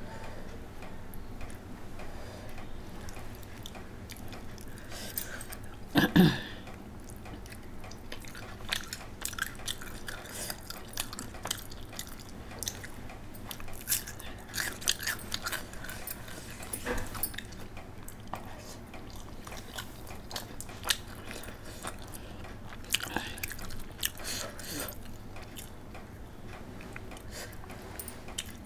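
Close-up eating sounds of a person eating rice and egg by hand: chewing, biting and wet mouth smacks, in many small clicks, with one short louder sound about six seconds in.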